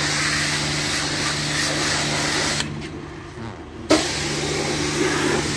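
High-pressure jet-wash spray in a loud, steady hiss over a low hum. It cuts off about halfway through and comes back on sharply a second or so later.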